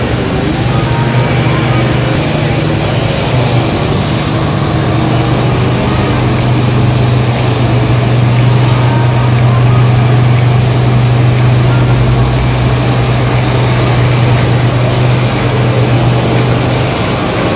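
Small petrol engine of grass-cutting equipment running steadily under load while cutting tall grass.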